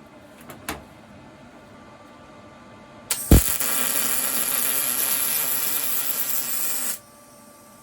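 A PrimeWeld MIG180 MIG welder's arc running for about four seconds, about three seconds in: a steady, loud hiss that begins with a sharp thump and cuts off suddenly. A couple of faint clicks come earlier.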